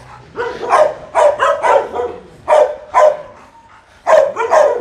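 Dogs barking in quick runs of short barks, with a brief pause about three seconds in.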